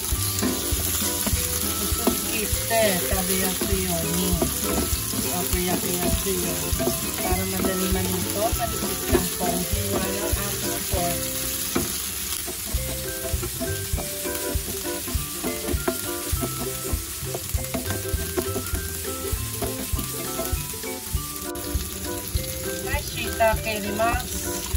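Sliced pork, onion, garlic and ginger sizzling in hot oil in a frying pan, stirred with a wooden spatula that clicks and scrapes against the pan.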